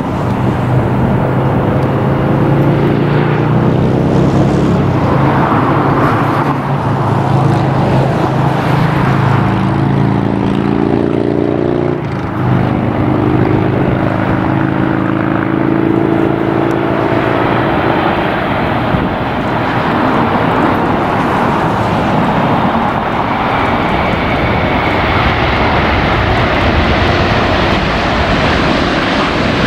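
Jet airliner engines running loud and steady, with low droning tones that shift slowly in pitch and a faint high whine coming in near the end.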